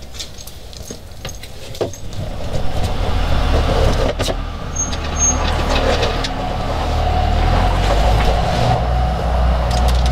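A motor vehicle's engine running close by, swelling in about two seconds in and then staying loud and steady, with a few sharp clicks over it.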